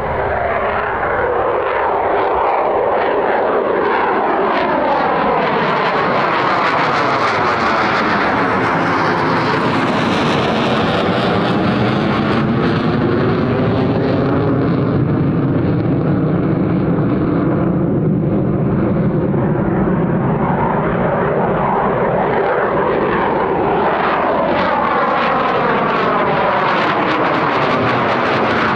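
Fighter jet engines running loud and steady, with a slowly sweeping, phasing tone as the aircraft move past.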